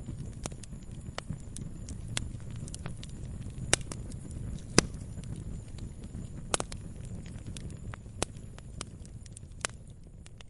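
Log fire burning: steady crackling with frequent small snaps and a few sharper, louder pops over a low rumble of the flames, the loudest two pops near the middle.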